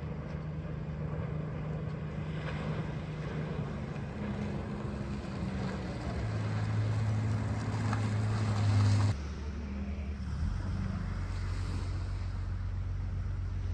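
Boat engine running with a steady low hum, its pitch shifting. It grows louder, then drops suddenly about nine seconds in and settles to a lower, steady note.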